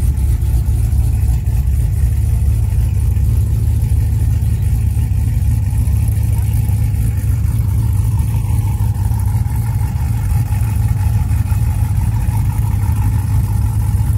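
Truck engine running with a steady low rumble.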